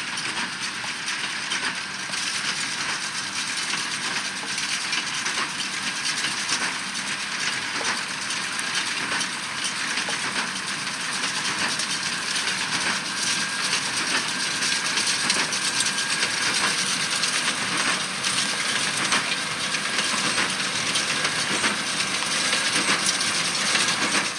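Fendt 724 Vario tractor and Massey Ferguson 2170 large square baler working through barley straw: a steady mechanical clatter and rattle with many sharp ticks, growing a little louder, then cutting off suddenly at the end.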